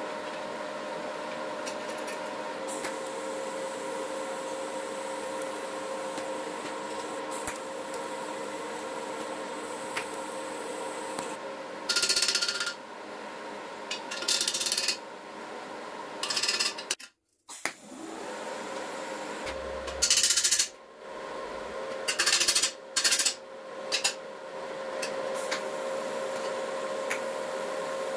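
Workshop tool work: several short scraping or rubbing noises, each about a second long, over a steady hum.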